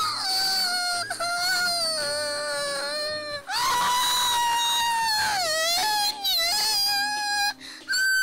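A cartoon girl's very high-pitched voice wailing and crying in long, drawn-out cries that slide up and down in pitch, broken off briefly a few times.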